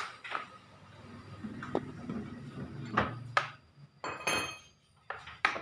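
Scattered metallic clinks and knocks from tools and engine parts being handled during a two-stroke engine teardown. One strike about four seconds in rings briefly.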